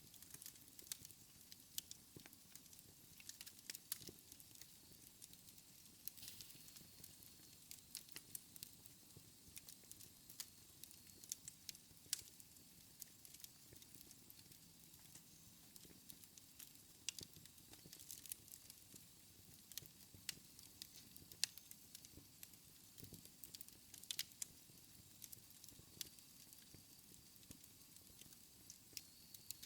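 Wood fire in a fireplace crackling, with irregular sharp pops and snaps over a soft hiss.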